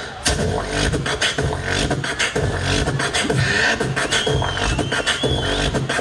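Solo beatboxer performing into a handheld microphone through the stage PA: a steady rhythm of vocal kick drums, snares and hi-hats. From about four seconds in, a wavering high whistle-like tone sounds over the beat.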